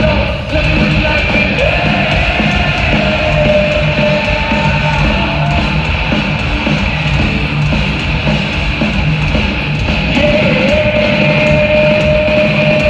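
Heavy metal band playing live at full volume through an arena sound system, with distorted guitars, bass and drums and a long held melodic line, recorded from the audience on a phone.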